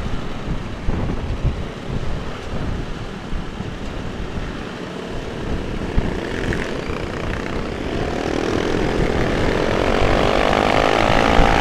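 Trail bike riding at speed, with wind rumbling on the helmet microphone over the engine. From about eight seconds in, an engine pulls harder, its note rising steadily and getting louder.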